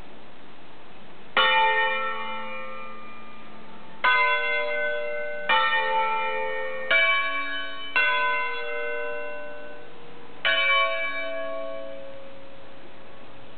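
Five-bell Ambrosian church peal cast by Roberto Mazzola in 1952, tuned A3, B3, C#4, D4, E4 and electrically swung, rung 'a concerto'. Six single strokes come at uneven gaps, each from a bell of different pitch, and each rings on and dies away slowly.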